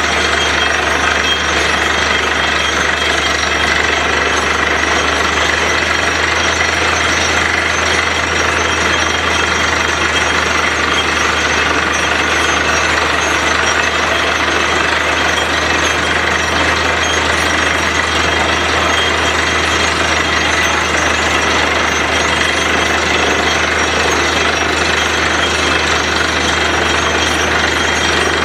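Truck-mounted borewell drilling rig at work: a loud, steady din of its engine and drilling machinery with a rapid hammering, unchanging throughout.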